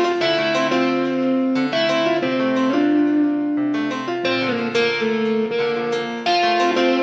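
Instrumental background music: a keyboard melody with a new note about every half second.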